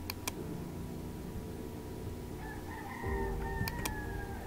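Computer mouse clicks, twice just after the start and twice near the end. From about halfway through, a faint, drawn-out animal call holds one slightly falling pitch for about two seconds.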